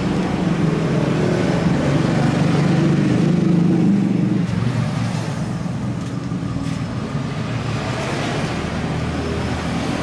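A passing motor vehicle's engine and road noise, swelling to its loudest three or four seconds in and then easing off to a steady traffic rumble.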